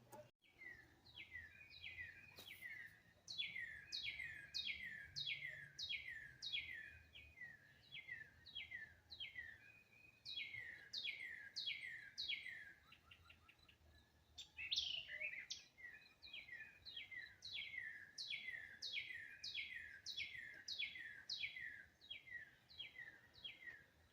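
A songbird singing runs of clear, down-slurred whistled notes, about two a second, in several phrases with short pauses between them.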